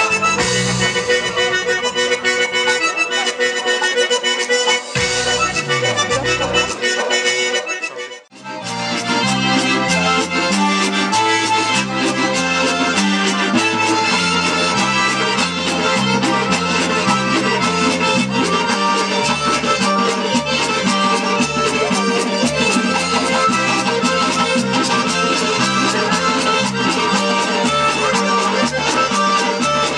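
Circassian folk dance music led by an Adyghe accordion (pshine), with a steady beat. It cuts out briefly about eight seconds in, then starts again.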